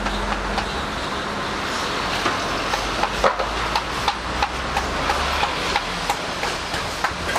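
Open-air market bustle: a steady low hum and general background noise, with a run of sharp taps and clicks, a few each second, coming irregularly.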